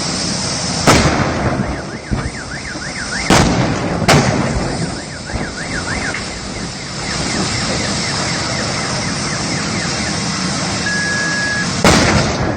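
Burning electric car: a steady rushing hiss with four sharp bangs, about a second in, twice around three and four seconds in, and near the end. A car alarm warbles on and off, and a single steady beep sounds shortly before the last bang.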